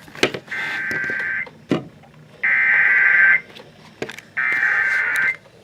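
Emergency Alert System SAME header on weather radio: three bursts of warbling data tones, each about a second long and about a second apart, the coded header that marks the start of a severe thunderstorm warning. A few faint clicks fall between the bursts.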